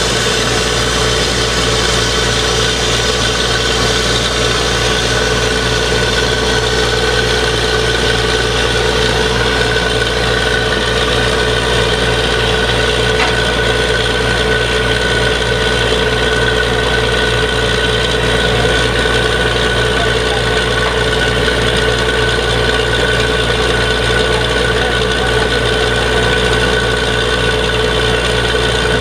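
Truck-mounted borewell drilling rig running steadily: its engine and power unit give a loud, constant hum with a steady whine over it.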